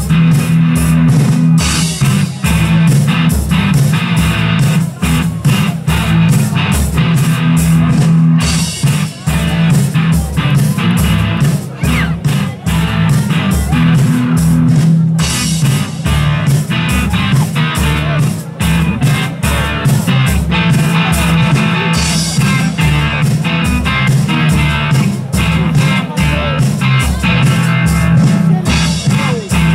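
Live rock band playing: electric guitars over bass guitar and a drum kit keeping a steady beat.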